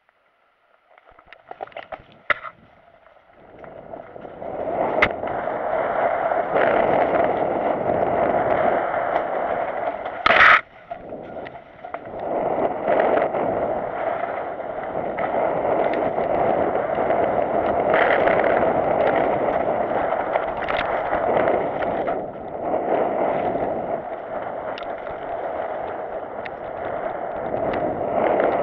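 Mountain bike riding down a dirt trail: steady rolling noise of the tyres on dirt with rattling of the bike. There are a few clicks in the first seconds before the bike gets going, and one sharp clatter about ten seconds in.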